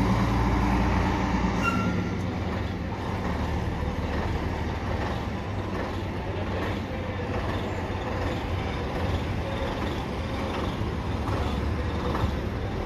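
Diesel engine of a heritage double-decker bus pulling away, its rumble strongest at the start and fading after about two seconds, with a brief high squeal near two seconds in; steady street traffic noise carries on after.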